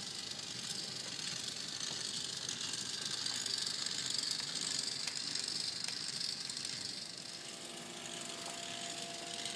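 Steady room-noise hiss, with a faint steady hum joining in about two seconds before the end.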